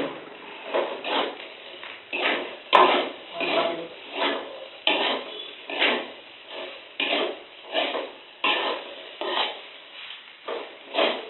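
Metal spatula stirring and scraping food around a metal wok, in repeated strokes about two a second.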